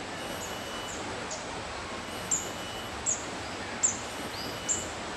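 A bird calling with short, high, downward-sliding chirps, about one a second and louder in the second half, over a steady background hiss.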